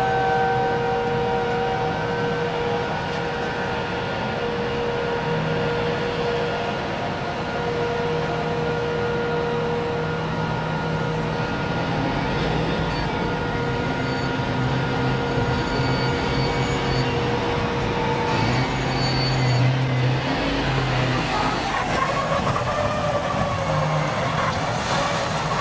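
Giant mining haul truck running on a haul road: a steady low engine hum under high, steady whining tones that fade out about two-thirds of the way through. Near the end a wavering, rising-and-falling tone comes in.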